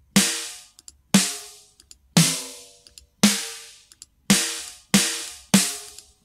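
Sampled metal-shell snare drum played alone at mid tuning with the bottom snare mic taken out: seven single hits, about a second apart and a little quicker near the end, each a sharp crack followed by a pitched metallic ring that dies away.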